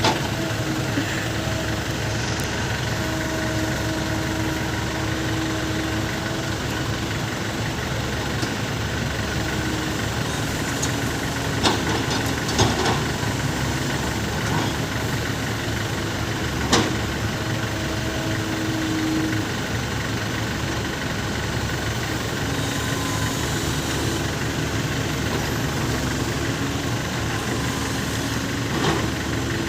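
Small six-wheel truck's diesel engine idling steadily, with a few sharp clicks about twelve and seventeen seconds in.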